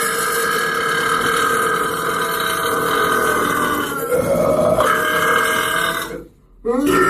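A person burping: one long, drawn-out burp that shifts in pitch a little past halfway, breaks off briefly near the end, then another burp begins.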